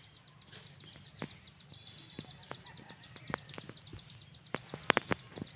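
Irregular sharp clicks and knocks, a few at a time, with a quick cluster of the loudest ones about five seconds in, over a faint steady outdoor background.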